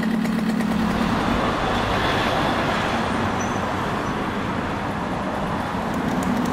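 Motorbike running steadily along a road, a low, even engine hum under a wash of road and wind noise.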